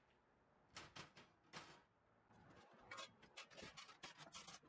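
Cast iron hibachi grill grates being handled and set into the grill body: a few separate light clinks and knocks in the first two seconds, then a quick run of small metallic clicks and rattles from about three seconds in.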